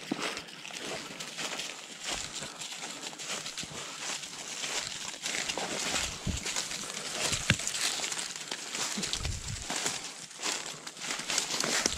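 Footsteps of a person and a leashed dog crunching and rustling through dry leaf litter and brush on the forest floor, with one sharper crack, like a twig snapping, about seven and a half seconds in.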